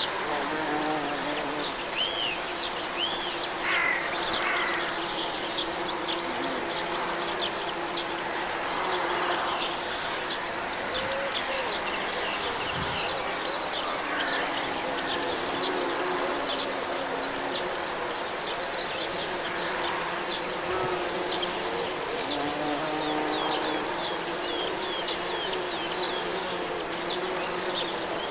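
Bumblebees and bees buzzing, a hum that wavers in pitch and swells and fades as they fly, over a continual run of short, high chirps.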